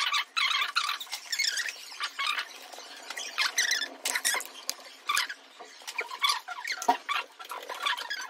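High-pitched chirps and squeaks, many short calls in quick succession.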